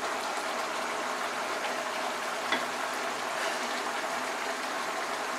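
Thick fish-and-potato curry boiling in a pan on the gas, a steady bubbling hiss with a few faint pops; this is the last minute-long boil of the dish after the ghee goes in.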